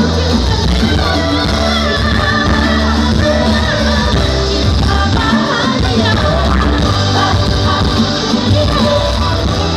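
Live pop band music with singing over a steady, heavy bass, played loud through a concert sound system.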